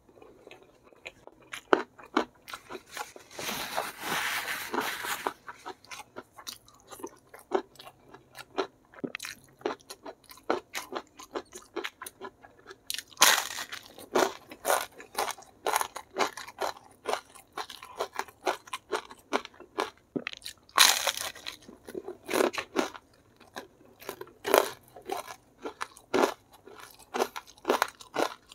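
A person chewing and crunching crispy fried food close to the microphone: a steady run of crisp cracks and mouth sounds, with louder bursts of crunching a few seconds in, about halfway and again about three quarters of the way through.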